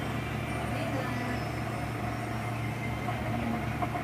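Steady low background hum with an even noise over it, unchanging throughout; the spooning of the foam makes no distinct sound.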